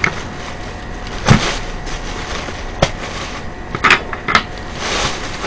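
Plastic carrier bag rustling and crinkling as its knot is worked open by hand, with several short, sharp crackles.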